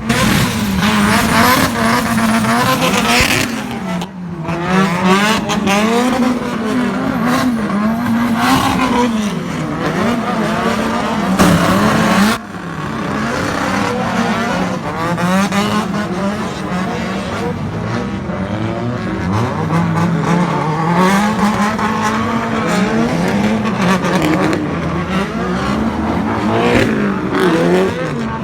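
Drift cars' engines revving hard, the pitch rising and falling over and over as the throttle is worked through slides, with more than one car heard at once. The sound breaks off abruptly about 4 seconds in and again about 12 seconds in.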